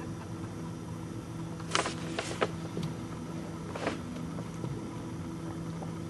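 Boat engine idling with a steady low hum, with a few sharp knocks about two seconds in and another near four seconds.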